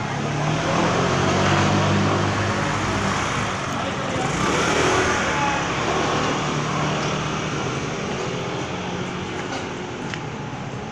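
Road traffic: a motor vehicle's engine running close by with a low steady hum, over a wash of street noise, swelling for a few seconds and then easing off.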